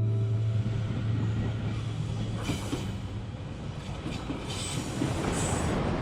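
A guitar note fades out at the start, then a steady, rumbling outdoor noise with a few brief hissing swells.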